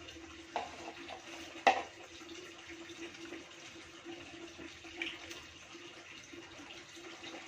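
Water being poured out of a bottle, a steady running trickle, with a few sharp knocks; the loudest comes about a second and a half in.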